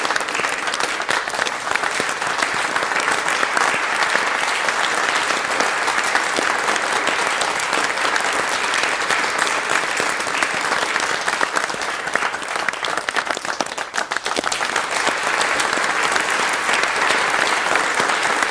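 A crowd applauding: dense, steady clapping from many hands, dipping briefly about three-quarters of the way through before swelling back up.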